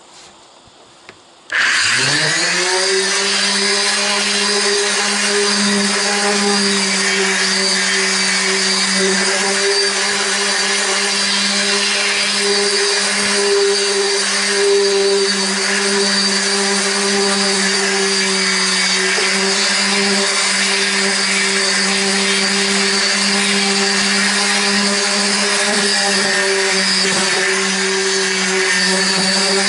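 Corded electric random orbital sander switched on about a second and a half in, spinning up with a quick rising whine, then running steadily as it sands back the painted roof of a bus.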